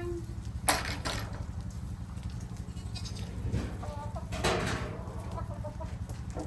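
A goat bleats once, a wavering call about halfway through, with a few sharp knocks and a steady low hum underneath.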